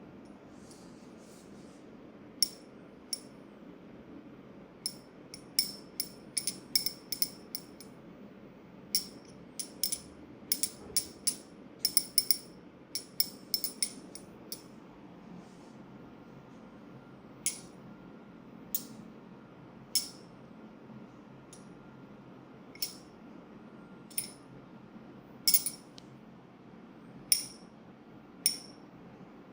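Sharp metallic clinks, in quick irregular runs through the first half, then single clinks every second or two.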